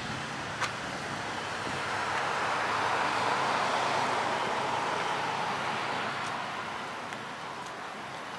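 A car passing by: road and tyre noise swells over a couple of seconds, peaks around the middle, then fades away. A single short click about half a second in.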